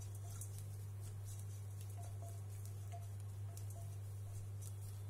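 Spatula stirring sliced onions and green chillies in a frying pan, with light ticks and faint crackling from the frying, over a steady low hum.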